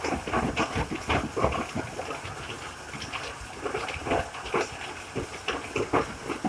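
HVAC duct-cleaning rod brush working inside a duct: an irregular run of scrapes and knocks over a steady hiss.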